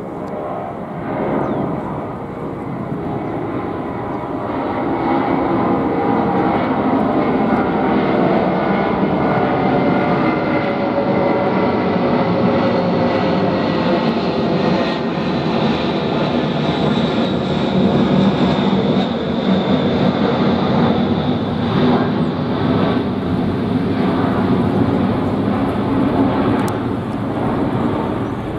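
Antonov An-124's four Progress D-18T turbofan engines passing overhead in a flyby. The engine noise swells to a peak mid-pass and eases off as the aircraft moves away, with a whine that slowly falls in pitch.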